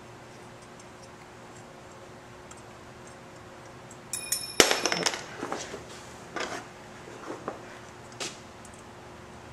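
Light metal clinks and taps of small screws, a hand tool and the metal cheese-wedge cover being handled on a motorcycle engine: a quick cluster of clinks about four seconds in, the loudest of the lot, then a few scattered single clinks.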